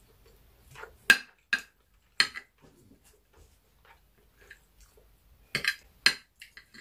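Metal spoon clinking and scraping against a ceramic dinner plate as food is scooped up: about five sharp clinks, with a quiet gap of a few seconds in the middle.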